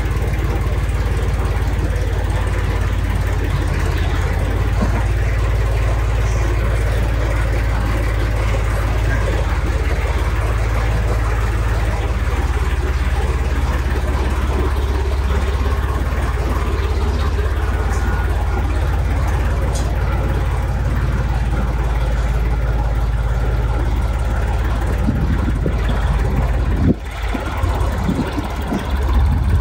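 International 454 tractor's engine running steadily at low revs as it reverses with a heavy load on its front loader. The sound dips and changes briefly near the end.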